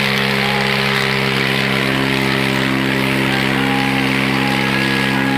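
Swaraj 744 FE tractor's three-cylinder diesel engine running steadily under load, its exhaust putting out black smoke.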